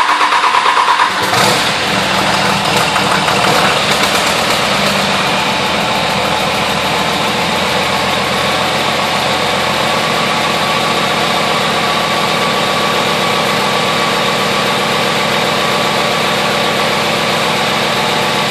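Pickup truck engine just fired up, running uneven for the first second or so, then settling into a steady idle.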